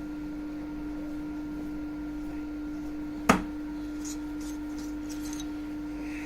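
Stainless steel rod being taken out of a metalworking lathe's chuck. One sharp metallic clack comes about three seconds in, then a few faint light clinks, over a steady hum.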